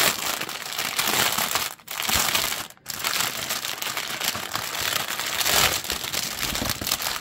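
Clear plastic wrap around a bundle of diamond-painting drill bags crinkling as it is handled and turned over. The crinkling breaks off briefly twice, about two and three seconds in.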